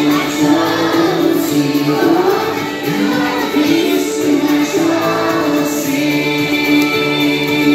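A group of children singing a song together over musical accompaniment.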